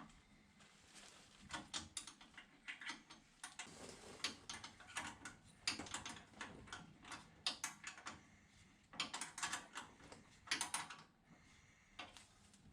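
Irregular metallic clicking and short rattles of a wrench working a bolt on the brake anchor plate, in uneven clusters of quick clicks.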